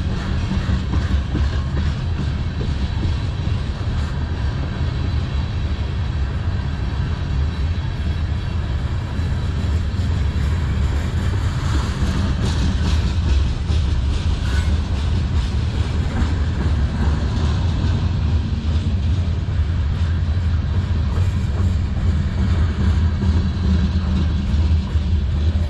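Freight cars (tank cars and a covered hopper) rolling past close by: steel wheels on rail making a loud, steady rumble, with a cluster of clicks about halfway through.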